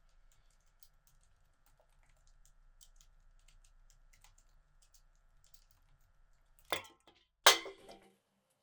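Faint typing on a computer keyboard, scattered light key clicks. About seven seconds in come two loud thumps, the second louder and with a short tail.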